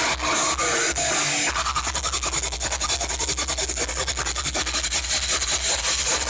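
Live metal band playing loudly: distorted electric guitars, bass and drums. About a second and a half in, it shifts into a fast, dense, hammering beat.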